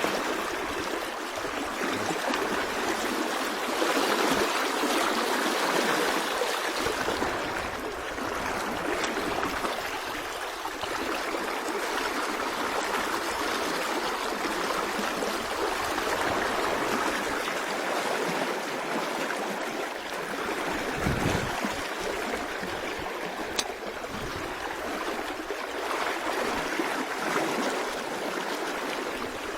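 Mountain river running over stones: a steady rush of fast-flowing water.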